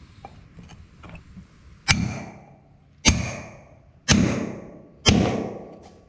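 Four hammer blows about a second apart on a hand-held top tool, clinching a forged collar around two steel rings on a collaring anvil. Each blow is a sharp metal-on-metal strike with a short ring that dies away over about half a second.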